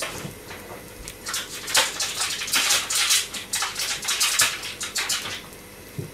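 Plastic wrapping crinkling and rustling in irregular bursts for about four seconds, starting about a second in, as it is handled and pulled open.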